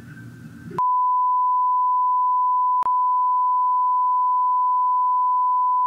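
A steady 1 kHz test tone of the kind played over a TV test card, cutting in abruptly about a second in, with one brief click and dropout about three seconds in. It signals technical difficulties and stands in for lost audio.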